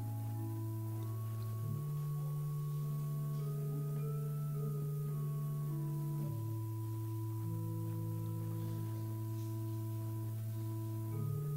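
Church organ playing slow, sustained chords. A held bass note changes about every two to five seconds, with soft upper chord tones moving above it.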